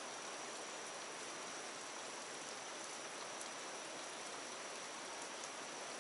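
Steady hiss of light rain falling on water and wet concrete, with a faint high steady tone over it and a few faint ticks.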